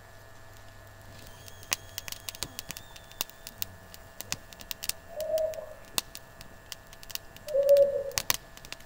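Small kindling fire crackling with frequent sharp pops. Two short, low bird calls about five and seven and a half seconds in are the loudest sounds.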